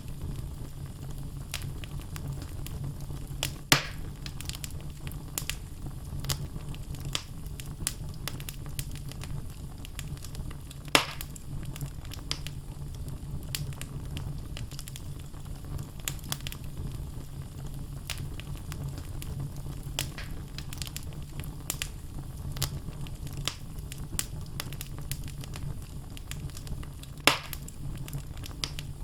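Wood logs burning in a fireplace, a steady low rumble of the flames under frequent small crackles. Three louder pops stand out, at about 4, 11 and 27 seconds.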